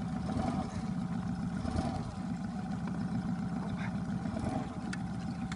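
An engine running steadily with a low, even hum, and a single faint click about five seconds in.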